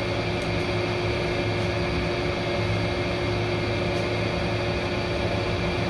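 Room air conditioner running: a steady hum with a few constant tones over it, unchanging throughout, with a couple of faint light ticks.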